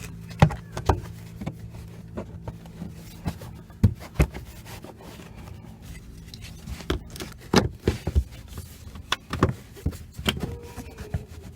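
Plastic speaker grille and door trim being handled and fitted into place: scattered sharp clicks and knocks with some rubbing, at irregular intervals.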